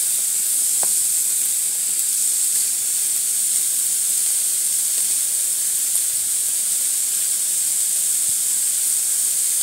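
Egg, tomato and onion omelet sizzling steadily on a flat-top griddle, with a faint click about a second in.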